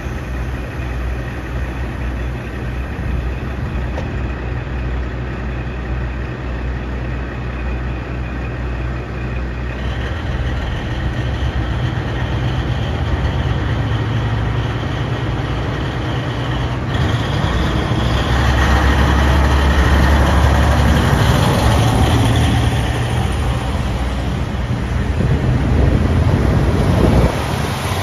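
Idling diesel engines of a KiHa 40/KiHa 47 railcar train. About halfway through, the engines rise in pitch and get louder as the train pulls away from the platform and moves off.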